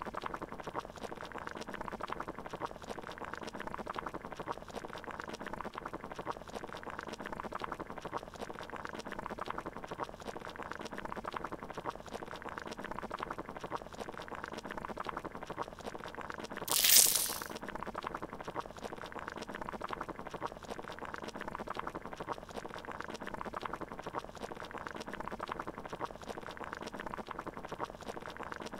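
Water boiling in a pot, a steady bubbling. A little past halfway there is one brief, loud hiss, about half a second long.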